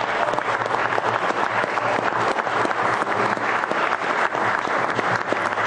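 Applause: a roomful of people clapping steadily.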